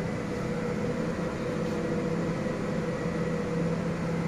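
Steady mechanical hum with a few steady tones from cold-room refrigeration equipment running. The freezer's compressor has cut out at its −20 °C set point and only its fan is running.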